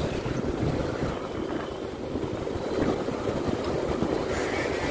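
Motorcycle running at steady road speed, heard from the saddle, with wind buffeting the microphone as it rides.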